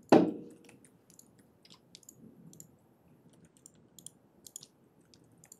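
Computer keyboard being typed on: a scattered run of light key clicks, with one much louder thump right at the start.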